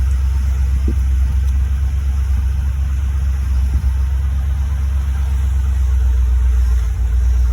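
2004 Chevy Silverado's 5.3-litre V8 running with a steady, loud low rumble.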